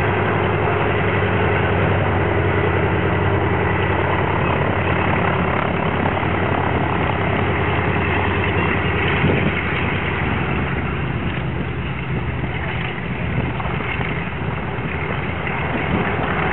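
Twin Pratt & Whitney R-1830 radial engines of a PBY Catalina amphibian running at low taxiing power, a steady low drone. It grows a little fainter past the middle as the aircraft turns away, then picks up again near the end.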